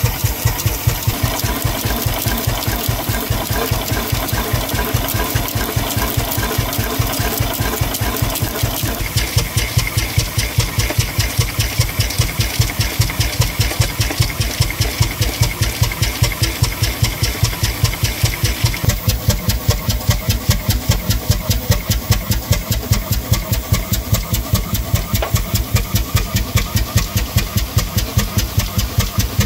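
Herreshoff triple-expansion marine steam engine running unloaded and non-condensing, with a fast, even beat and steam hissing. A brighter hiss comes in about nine seconds in and drops away about ten seconds later.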